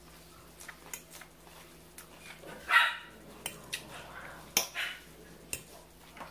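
A dog barking: one loud, sharp bark with a falling pitch about halfway through and a smaller one a couple of seconds later, with a few light clicks in between.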